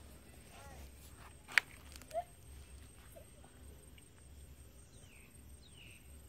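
A sharp knock about a second and a half in, with a smaller one about half a second later, over faint outdoor background with a few faint chirps.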